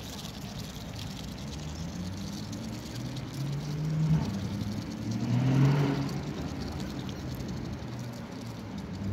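Low motor-vehicle engine hum that swells to its loudest about five to six seconds in, then fades.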